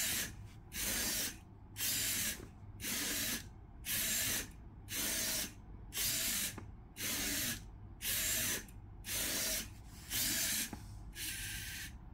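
Servo motors of a Robosen Bumblebee robot whirring in short bursts about once a second as the robot repeats an exercise routine of squats and arm swings. The bursts stop shortly before the end.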